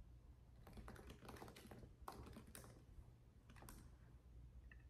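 Faint typing: a scatter of light, irregular key taps.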